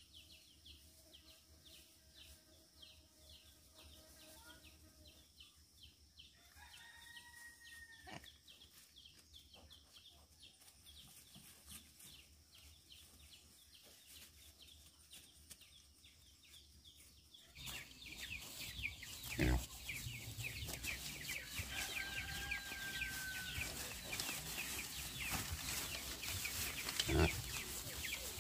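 Chickens calling and clucking over a steady, rapidly pulsing high background hiss. About two-thirds of the way through the sound gets louder, and two sharp thumps follow.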